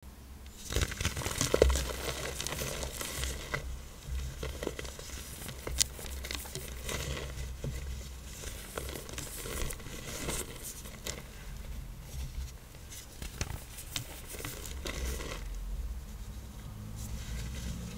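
Hard-pressed black iron oxide blocks being crushed, crunching and crumbling with a dense run of crackles and sharp snaps.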